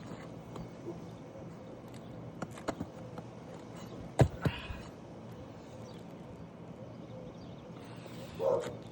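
Scattered sharp knocks and taps from hand tools and footsteps working on an asphalt shingle roof, the loudest a pair of knocks about four seconds in, with a short scraping rustle near the end.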